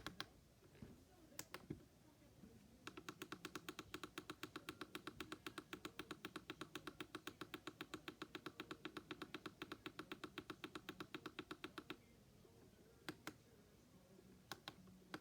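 Weather radio's button giving fast, even clicking beeps, about six a second for some nine seconds, as a button is held to scroll the alarm time, with a few single button clicks before and after.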